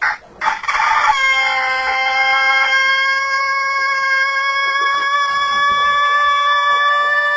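A short sharp sound, then a brief noisy burst, then about a second in a rooster-style crow that is held on one nearly steady pitch for the rest, far longer than a natural crow.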